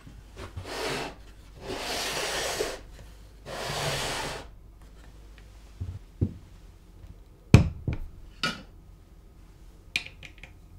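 Plywood carriage rubbing as it slides along a plywood rail, three long strokes, followed by several short, sharp wooden knocks and clunks, the loudest a little past the middle.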